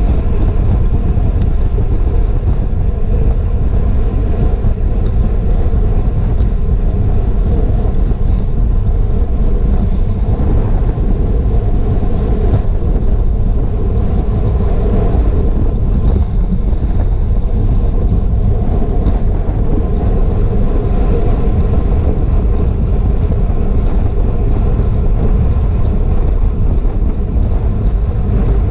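Steady wind rumble buffeting a GoPro's microphone on a bicycle ridden at race speed, with a few faint ticks.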